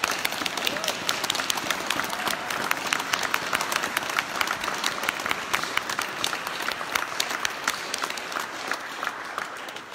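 Congregation applauding: many hands clapping together, tapering off near the end.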